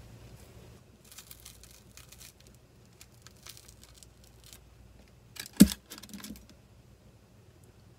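Hands tearing bread and handling the parchment paper lining a bread pot: scattered crackly rustles, then one sharp knock about five and a half seconds in, followed by a little more paper crinkling.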